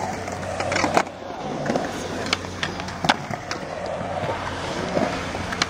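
Skateboard wheels rolling on a concrete skatepark bowl, with several sharp clacks of boards striking the concrete, the loudest about three seconds in.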